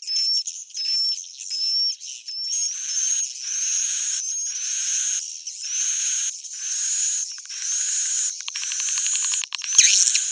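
Edible-nest swiftlet roosting calls, the lure sound played in swiftlet houses to draw birds in to roost: high twittering chirps in short phrases repeating about once a second, with a fast rattle of clicks near the end.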